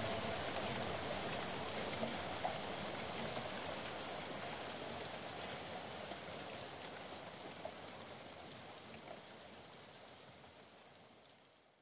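Steady rain falling, with scattered drop ticks, fading slowly until it dies away near the end.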